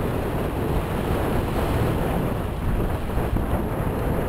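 Steady wind buffeting the microphone over water rushing past the hulls of a Magnum 21S sailing catamaran under way.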